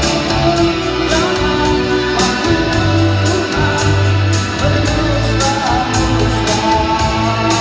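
Live rock band playing with a singer: a sung melody over guitar, bass and drums, with cymbal strokes keeping a steady beat.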